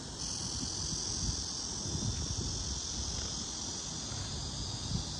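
Steady, high-pitched drone of a summer insect chorus, with a low, uneven rumble underneath.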